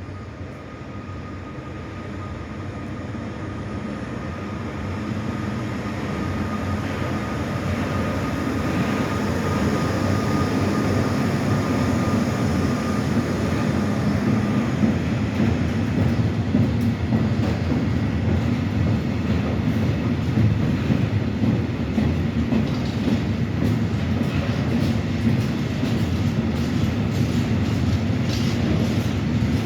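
Freight train passing, hauled by an ÖBB Taurus class 1116 electric locomotive with Eas open wagons. The rumble builds over the first dozen seconds, then holds steady as the train rolls by, with wheels clicking over rail joints in the later part. A steady high tone runs through the first half and stops about halfway.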